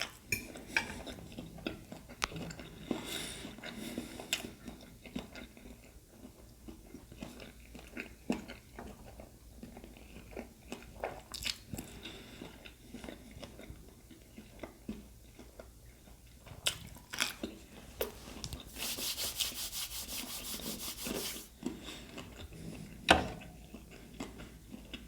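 Close-miked chewing and biting of food, with wet mouth smacks and small clicks. A couple of seconds of hissing rustle about three-quarters through, and a sharp click near the end.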